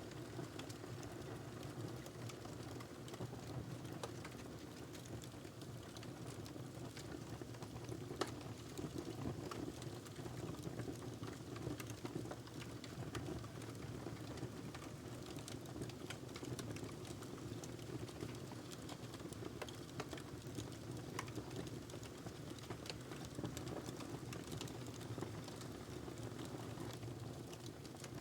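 Burning logs crackling in a fireplace: a steady low rush of the fire with frequent small pops and snaps, and one sharper pop about eight seconds in.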